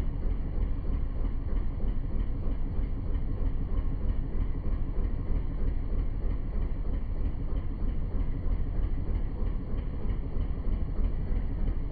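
Steady low rumble of a moving boat, running evenly without a break.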